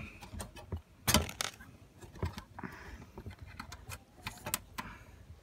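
Small metal screws and a metal bracket clicking and clinking against the sheet-metal casing of an electric hob as fingers position them, with the loudest clack about a second in.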